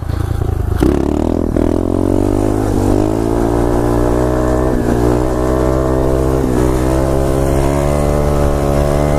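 2015 SSR 125cc pit bike's single-cylinder four-stroke engine held at high revs through a long wheelie. The pitch climbs over the first few seconds, then stays nearly steady.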